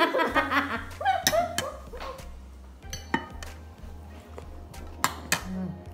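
A woman laughing over background music with a steady low beat, then a few sharp clinks of a spoon and fork against a plate as she eats.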